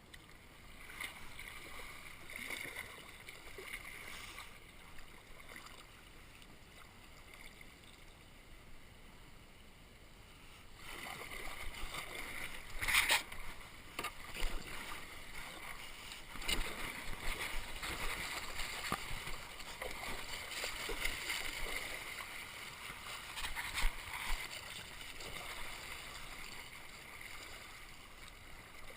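River water rushing and splashing around a kayak, getting louder from about eleven seconds in, with a few brief louder splashes.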